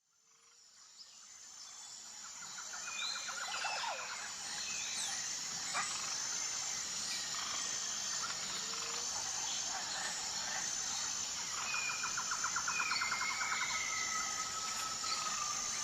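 A chorus of wild birds chirping, whistling and trilling, with rapid rattling trills about a quarter of the way in and again near the end. It fades in over the first few seconds and then holds steady.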